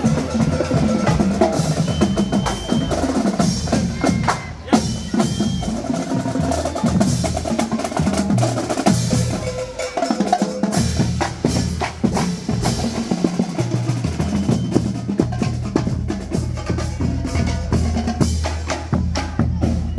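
Marching band playing, with snare drums, bass drums and other percussion to the fore, including drum rolls.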